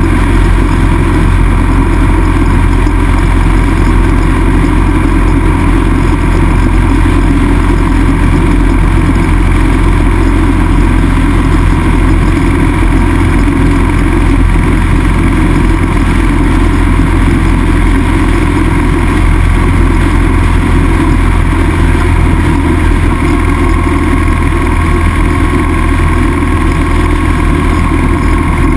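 Motorcycle riding steadily at cruising speed: an even engine drone mixed with loud wind rush on the microphone, with no gear changes or revving.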